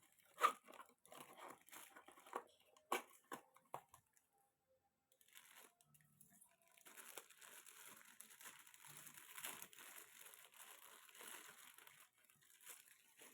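Plastic packaging crinkling and tearing as a new fishing reel is unwrapped: scattered rustles and clicks at first, then after a short pause several seconds of continuous crackling.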